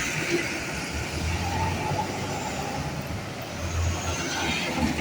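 Large bus engine running and pulling away, its low rumble swelling about a second in and again near four seconds, over general traffic noise.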